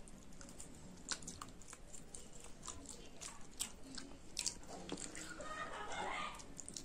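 Close-up eating sounds of children chewing chicken and rice eaten by hand: irregular wet smacks and small clicks of mouths and fingers, with a denser crackly stretch about five seconds in.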